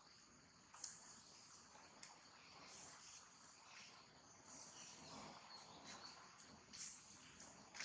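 Faint, steady high-pitched insect chorus, with a few soft clicks.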